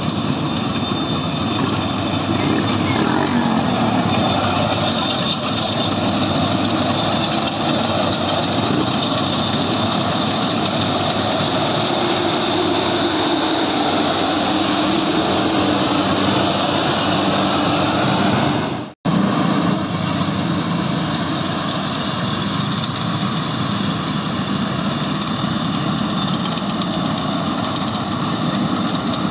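Yanmar YH850 rice combine harvester running steadily while harvesting: diesel engine and threshing machinery with a steady high whine over the engine noise. About two-thirds of the way through, the sound drops out completely for a split second, then resumes unchanged.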